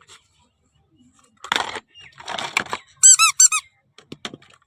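Rustling or scraping, then four quick, loud high squeaks, each rising and falling in pitch.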